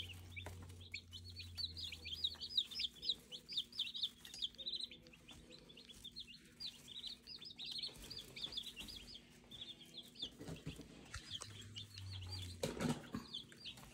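A brood of baby meat chicks peeping: a steady stream of short, high cheeps that each slide downward in pitch. A brief knock sounds near the end.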